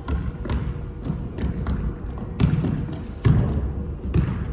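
Basketball being dribbled: a series of irregular thumps of the ball hitting the court, the hardest about two and a half and three and a quarter seconds in.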